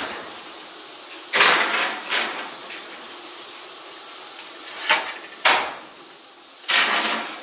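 Metal clatter of an oven door and rack as a cast iron skillet of cornbread batter is put into the oven: about five knocks and clanks with a short ring, the loudest near the start, a little past the middle and near the end.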